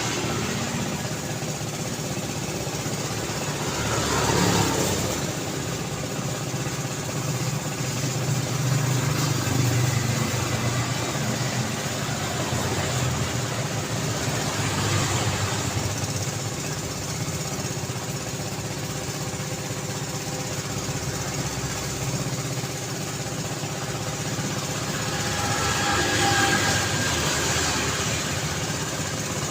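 City road traffic: a steady wash of car engines and tyre noise, with individual vehicles swelling louder as they pass, three times.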